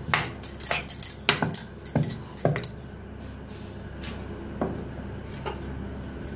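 Rolling pin knocking and clattering on a round rolling board as a roti is rolled out: a quick run of sharp knocks in the first two and a half seconds, then two more, over a steady low hum.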